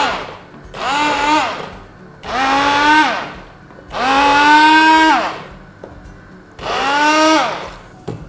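Electric stick (immersion) blender puréeing a pot of cooked crushed-lentil soup. It runs in about five short bursts of roughly a second each, its motor whine rising as each burst starts and dropping away as it stops.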